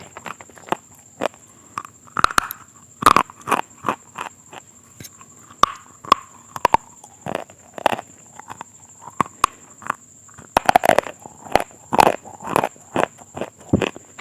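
Close-miked eating of something crunchy: crisp bites and chewing, an irregular run of sharp cracks and crunches, some in quick clusters.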